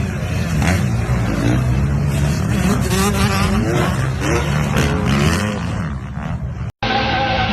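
An off-road 4x4 engine revs repeatedly, its pitch rising and falling under load. Nearly seven seconds in the sound cuts out abruptly, and another engine picks up at a steady pitch.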